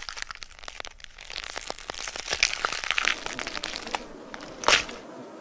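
Wet crunching and crackling chewing sounds of animals feeding on a carcass, a dense run of small crunches with one louder crunch near the end.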